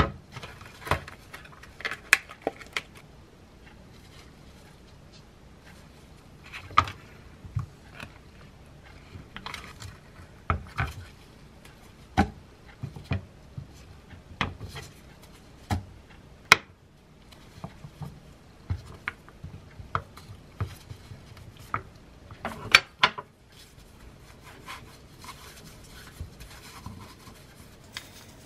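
Knife cutting a block of butter into sticks and cubes on a wooden cutting board: scattered taps and knocks of the blade on the wood at irregular intervals, with a few short rustling spells from the butter's wrapper.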